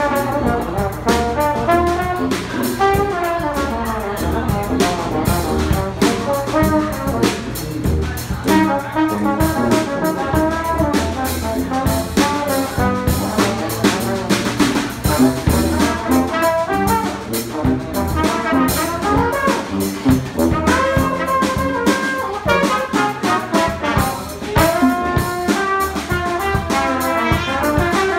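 Live brass band playing an up-tempo tune: sousaphone bass line, trombone and trumpet parts, and a drum kit keeping a steady beat with cymbals.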